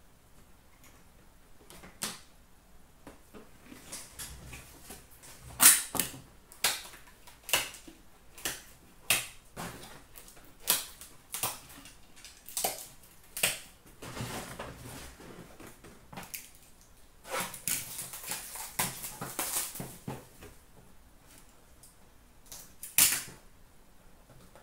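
Trading cards and their packaging being handled: a run of sharp clicks and taps, roughly one a second, then a few seconds of rustling, and one more sharp tap near the end.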